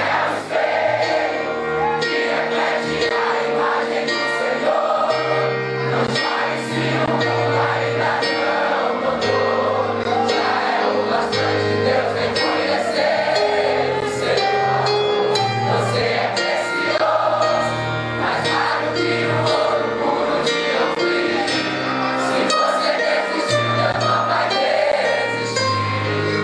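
Live gospel worship music: a band playing a slow song while many voices sing together.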